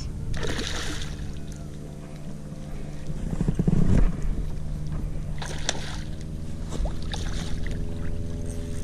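Hooked stingray splashing and thrashing at the surface on a fishing line, with a steady low hum underneath and a louder swell of noise about four seconds in.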